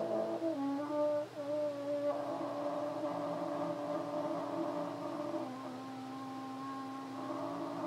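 French horn played in long held low notes, the pitch stepping about half a second in and again past five seconds, with a second line of tones moving separately above them.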